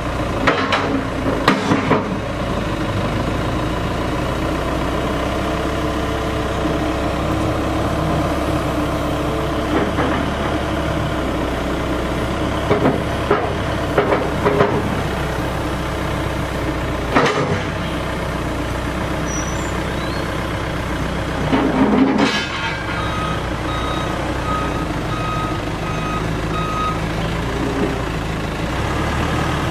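Volvo BL70 backhoe loader's diesel engine running steadily, with occasional clanks from the machine. Near the end a backup alarm beeps in a steady series of short high tones.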